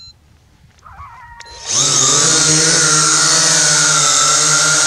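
Vivitar 360 Sky Eye View quadcopter's electric motors and propellers spinning up, with a short rising whine about a second and a half in, then running steadily with a loud, high buzzing whine. A few faint ticks come before the motors start.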